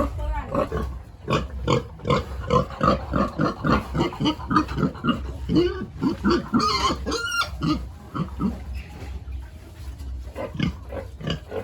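Pigs grunting in a rapid string of short calls, about three a second, easing off for a couple of seconds and picking up again near the end.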